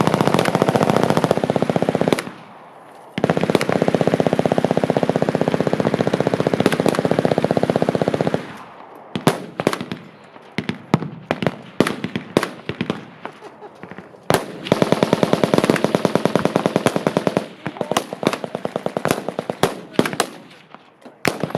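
Machine guns firing full-auto: a long rapid burst at the start, a longer one of about five seconds, and another about two-thirds of the way through. Between them come scattered single shots and short bursts from other guns.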